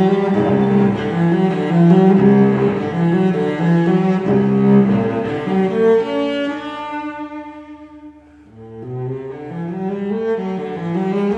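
Instrumental background music in a low register, with notes moving in steps like a cello or double bass line. It fades to a brief low point about eight seconds in, then picks up again.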